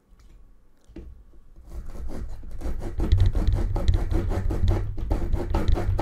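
Folding saw blade of a Bibury pliers multitool sawing through a dry wooden branch in quick, even back-and-forth strokes. It starts faintly about a second in and grows louder, cutting smoothly.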